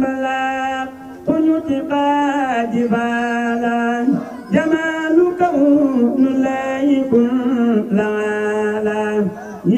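A man singing a devotional chant solo into a microphone, drawing out long held notes with small bends in pitch. He sings in phrases a few seconds long, with short breaks about a second in, about four seconds in and near the end.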